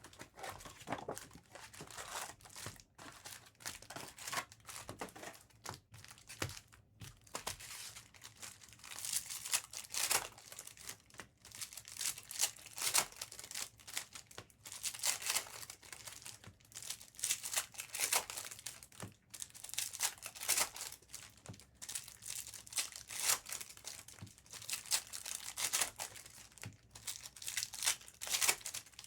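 Trading-card packaging being opened by hand: plastic wrap crinkling and tearing in repeated irregular bursts as a fresh case of Bowman basketball hobby boxes and packs is unwrapped.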